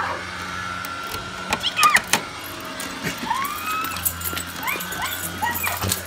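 Dogs whining and yipping in excitement at a homecoming, a series of short rising-and-falling whines through the middle and later part, with scattered sharp clicks.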